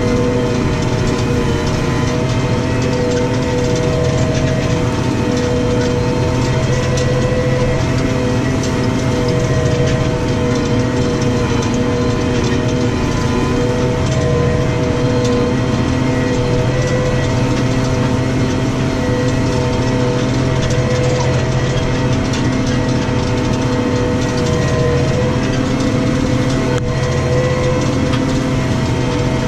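New Holland T6 155 tractor's diesel engine running steadily under load while pulling a plough, with a steady whine over the engine note.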